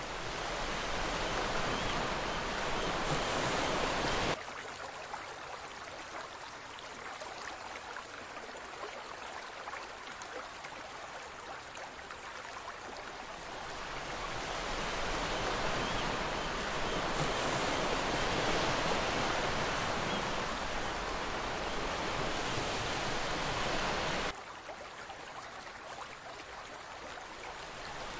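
Ocean waves as a rushing sea-surf ambience, swelling and easing slowly, with abrupt drops in level about four seconds in and again about four seconds before the end.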